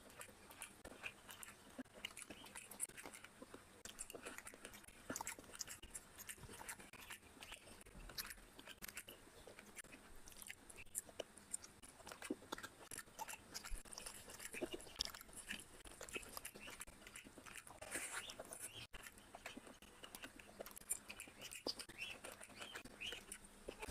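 A man chewing mouthfuls of biryani with chicken liver and gizzard curry, eaten by hand: steady chewing with many short mouth clicks.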